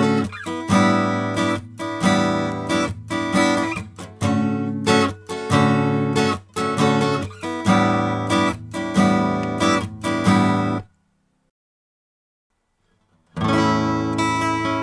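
Strummed guitar chords played back as a sample recorded through a Dave Hill Designs Europa 1 microphone preamp at its transparent setting. The playing cuts off abruptly about three-quarters of the way through, and after about two seconds of silence the passage starts again, now through the preamp set to a medium slew rate with added harmonics.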